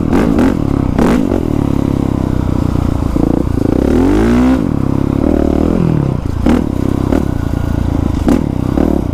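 Honda CRF450R's single-cylinder four-stroke engine running under way, revving up and dropping back about four seconds in, with a few sharp clatters from the bike.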